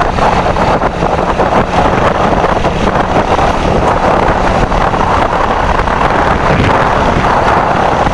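Win Detech 110 motorcycle riding fast, its four-stroke single-cylinder engine running under load beneath heavy wind noise on the handlebar-level microphone. The sound is steady throughout, with no gear changes or revving.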